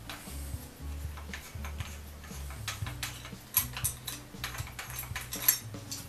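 Light metallic clicks and ticks as the chuck and drill bit of a Millers Falls No. 12 breast drill are handled while the bit is changed, thickest in the second half, over soft background music.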